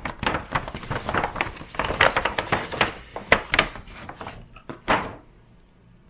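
Packaging being handled on a table: a quick jumble of knocks, taps and rustles that stops about five seconds in.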